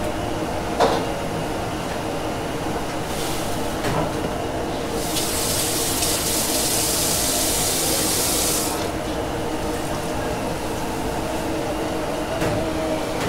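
Running water hissing in a strong spray for about four seconds near the middle, with a shorter, weaker run of water a little before it, over a steady background hum.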